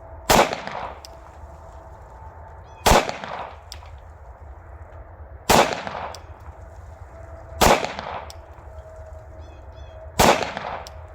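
Five single pistol shots fired at a slow, even pace, about two and a half seconds apart, from a 9mm Glock 19-pattern pistol with a Palmetto State Armory complete slide. Each shot is a sharp crack with a short echo, and the pistol cycles with no malfunctions.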